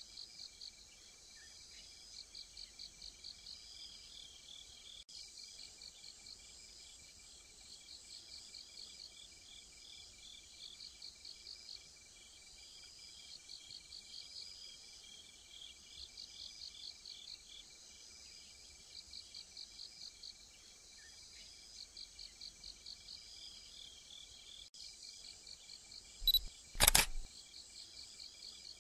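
Crickets chirping in repeated short pulsed trills, with a steady, even high trill from another insect underneath. Two sharp clicks stand out near the end.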